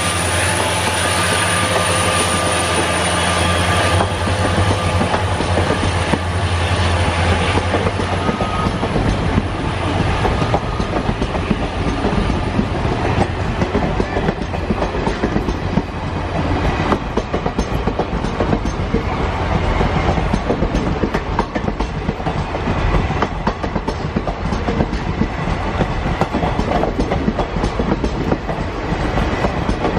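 EMD WDG4 diesel locomotive passing close: its 16-cylinder two-stroke engine gives a steady low drone with a high turbocharger whine, fading over the first several seconds. Then the passenger coaches roll by with a continuous rhythmic clickety-clack of wheels over the rail joints.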